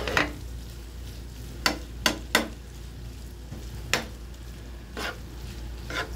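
A metal spoon stirs and scrapes chicken sisig around a nonstick frying pan, clacking sharply against the pan several times at uneven intervals over a sizzle of the frying mix.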